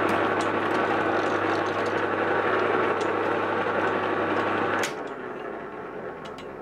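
Metal lathe parting off a large steel flange with a cobalt parting tool: a steady motor hum under the cutting noise. About five seconds in comes a single sharp crack and the hum cuts off, leaving the workpiece spinning down; the crack is typical of the cobalt tool jamming and snapping as the parting cut nears its end.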